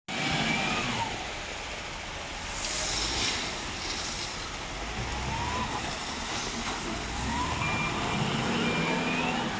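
Hindustan 2021E wheel loader's diesel engine working, its pitch rising and falling as it revs, with short hissing bursts about three and four seconds in.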